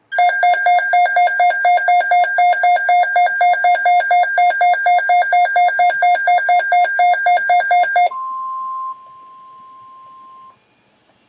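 Weather radio receiver sounding its alert alarm: loud, rapid beeping at about four beeps a second for about eight seconds, signalling an incoming weather alert. It then gives way to a single steady warning tone, the NOAA Weather Radio warning alarm tone, which is loud for about a second, then softer, and cuts off about ten and a half seconds in.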